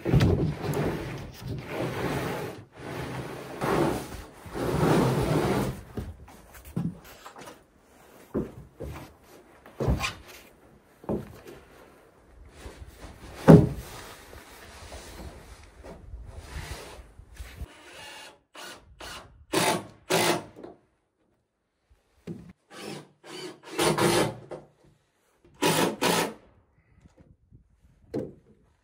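A plywood subfloor sheet scraping and sliding across wooden joists, then scattered knocks with one sharp bang about halfway through. Near the end come several separate bursts of about a second each, a cordless driver running screws into the plywood loft floor.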